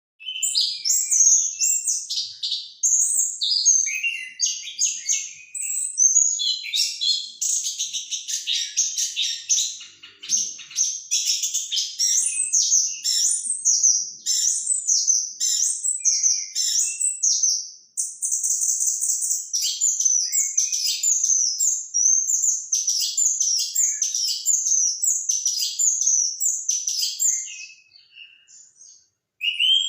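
Orange-headed thrush (anis kembang) singing a long, nearly unbroken run of fast, varied warbling phrases, the continuous 'ngerol' style of song. It falls quiet briefly near the end.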